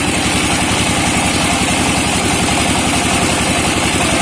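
Single-cylinder 'shallow' diesel engine running steadily to drive a mustard-oil expeller press, with an even, fast chugging beat.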